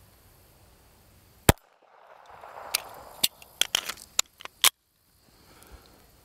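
Walther CCP 9mm compact pistol firing: a loud shot about a second and a half in, several quieter sharp cracks over the next three seconds, and another loud shot near five seconds.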